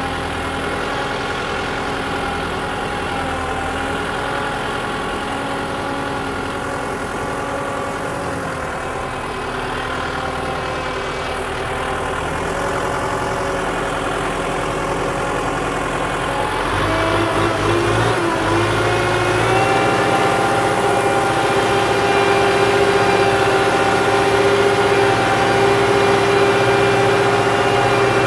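Farm tractor's diesel engine running steadily under way. About two-thirds of the way through it rises in pitch and gets louder as it is given more throttle, then holds there.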